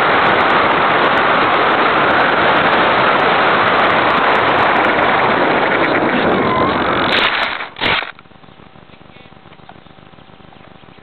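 RC airplane in flight, heard through its own onboard camera: a loud, steady rush of motor, propeller and air noise. It drops away about seven and a half seconds in, and a brief loud knock follows as the plane hits the ground in tall grass. After that it is much quieter.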